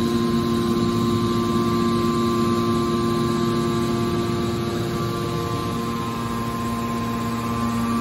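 Hydraulic power unit of a metal baler running, its electric motor and pump giving a steady hum with a few steady whining tones. The lowest tone fades slightly for a couple of seconds and comes back near the end.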